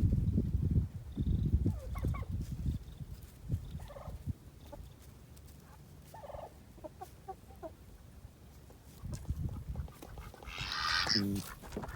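Domestic turkeys making short scattered calls, with a louder call about eleven seconds in. A low rumble on the microphone fills the first second or two.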